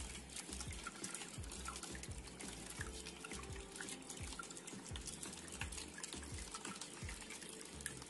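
Water trickling and splashing down a homemade cement tabletop waterfall fountain, with many small drips.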